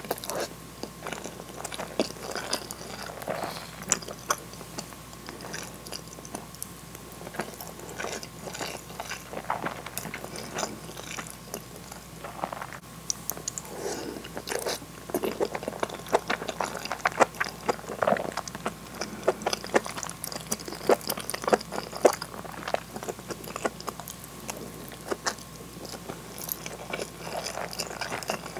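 Close-miked chewing of soft food: mouthfuls of rice and hamburg steak in sauce, with irregular wet mouth clicks throughout.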